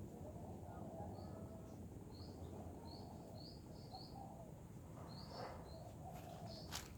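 Birds calling faintly in a rural garden: a string of short, high chirps with lower wavering calls beneath, over a steady low background hum. A single sharp click comes near the end.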